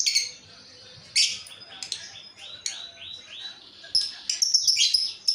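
Female lovebird calling: sharp high chirps, then a run of five short arching notes about two seconds in, followed by a fast series of shrill chirps near the end.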